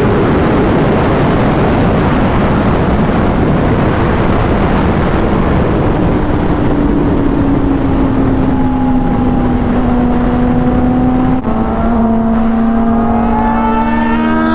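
Motorcycle riding at speed: heavy wind rush over a sport-bike engine's drone, whose pitch sinks slowly, then holds steady after a brief dip about eleven seconds in.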